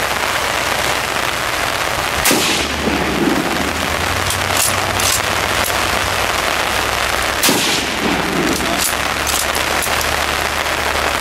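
Gunshots from the firing line: two louder shots about five seconds apart, each trailing off in an echo, with a few fainter shots between, over a steady hissing background noise.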